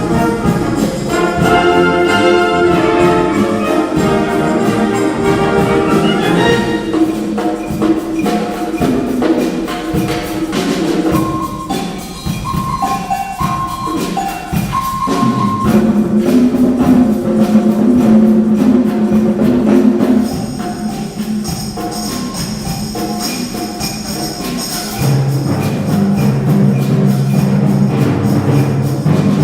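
Concert wind band playing, with fast, even percussion tapping under the ensemble. The band thins out about 11 seconds in to short, high melodic notes, then the full band returns, with low notes entering near the end.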